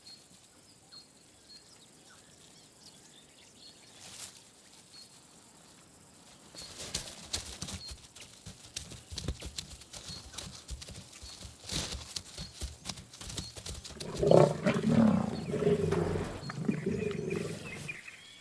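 Lions growling and snarling while attacking a young giraffe, with scuffling and crackling in the brush from about a third of the way in. The growls are loudest about three-quarters of the way through. Faint, regular chirping is heard in the quiet first few seconds.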